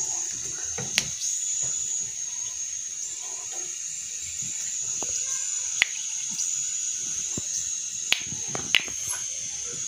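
Fenugreek seeds frying in hot oil in a steel wok: a steady sizzling hiss broken by a few sharp crackles. The seeds are being taken to the point of browning.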